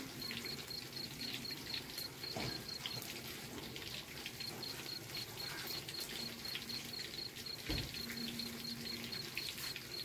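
Bananas frying in a wok of hot oil, with a light, scattered crackle, while a cricket chirps in a fast, even pulsing trill for the first three seconds or so. Two knocks, about two and a half and eight seconds in.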